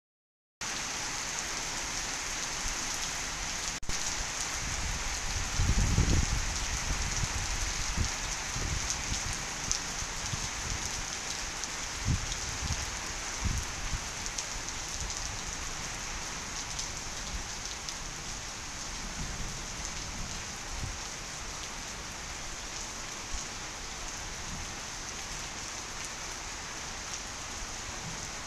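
Heavy rain pouring steadily onto a flooded concrete yard and corrugated roofs, a constant hiss of water. A low rumble about six seconds in is the loudest moment, with a few fainter low knocks after it.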